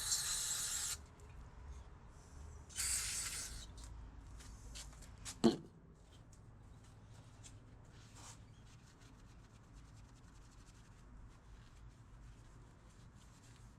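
Aerosol can of carburetor cleaner sprayed in two short hissing bursts about a second long, the second about three seconds in, as a final rinse of a cleaned throttle body. A single sharp knock follows about five and a half seconds in, then faint rubbing and light clicks.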